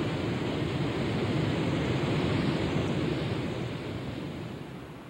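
Ocean surf: a steady rushing noise of breaking waves that fades over the last second or so.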